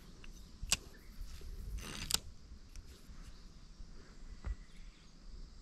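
Faint handling noises from a fishing rod and reel: a soft click a little under a second in, a short rustle about two seconds in, and another small click later.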